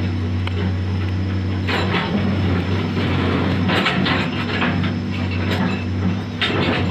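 Komatsu PC210 excavator's diesel engine running steadily under load. Three bursts of rock and gravel crunching are heard as the bucket presses small stones into the ground, at about two, four and six and a half seconds.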